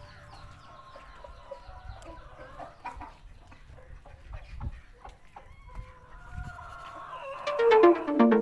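Many chicks peeping in short high falling chirps, with a hen clucking and a couple of low thumps; loud electronic music comes in near the end.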